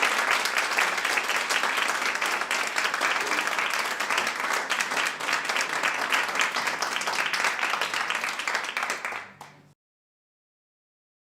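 Audience applauding: many people clapping steadily, dying away about nine seconds in and cutting to silence.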